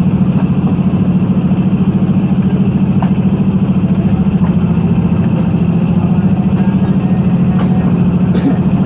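Diesel locomotive engine idling with a steady, rapid low throb, and a few faint clicks near the end.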